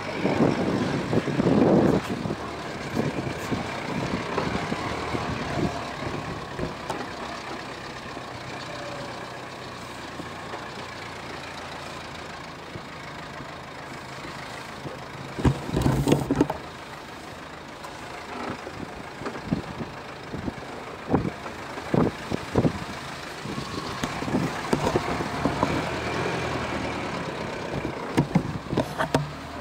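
Subaru Forester's flat-four engine running as the car drives over a rutted dirt track, with tyre and wind noise, heard from outside the car's side. Louder bursts come about two seconds in and around the middle, and scattered thumps and knocks follow in the second half as it goes over the ruts.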